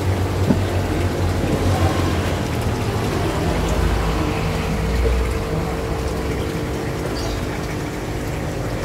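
Steady water noise from aquarium filters and air pumps, running water and bubbling over a low hum.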